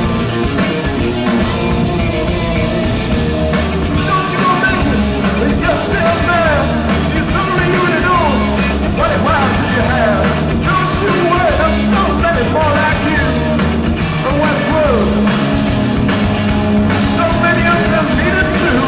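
Live rock band playing: electric guitars, bass guitar and drums, with a guitar lead line full of sliding, bending notes over a steady bass and drum groove.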